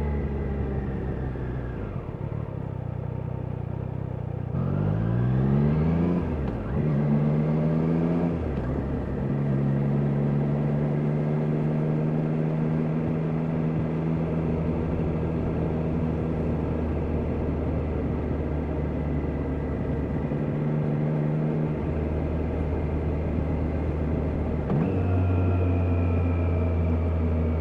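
Triumph Daytona 660's three-cylinder engine on the move: the pitch falls as it slows at first, then rises in quick climbs broken by gear changes about five to eight seconds in, holds steady at cruising speed, and climbs again near the end.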